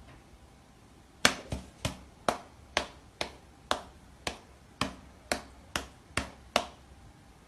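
A run of about a dozen sharp clicks or taps, unevenly spaced at roughly two a second, starting about a second in and stopping shortly before the end.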